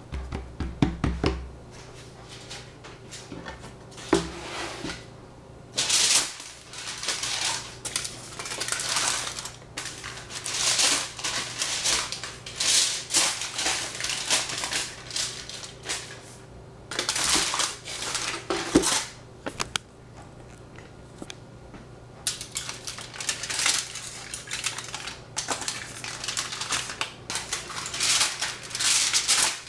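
Kitchen utensils scraping and clicking against dishes in repeated bursts a few seconds long, with short pauses between.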